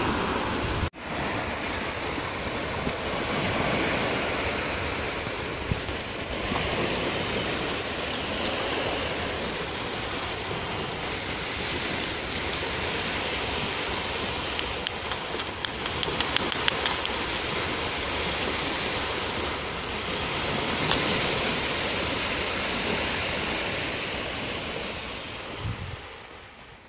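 Surf washing on a sandy beach with wind buffeting the microphone, a steady rush of noise. It drops out for an instant about a second in, a few light clicks come near the middle, and it fades away at the end.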